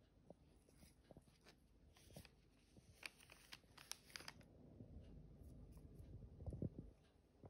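Faint crinkling and small clicks of a bouquet's paper wrapping and stems as a cat noses and nibbles into it, busiest about halfway through, with a few soft low bumps near the end.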